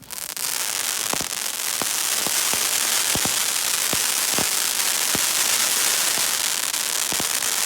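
Fireworks crackling: a dense, steady crackle with about a dozen louder pops scattered through it.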